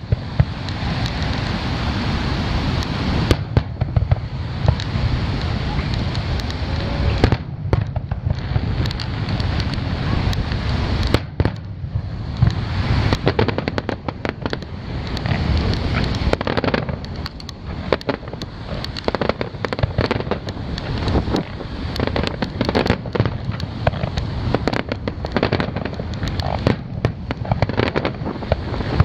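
Aerial fireworks display: shells bursting with repeated bangs and crackle, the bangs coming thick and fast in the second half.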